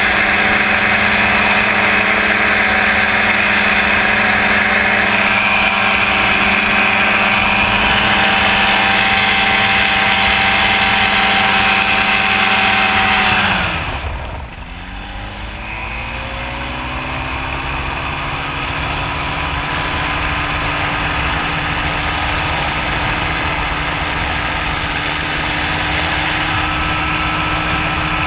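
Ultralight trike's engine and propeller running at high power, then throttled back sharply about halfway through, the pitch falling away and the level dipping. Power then comes back on, the pitch rising again, and it settles into a steady, somewhat quieter running note.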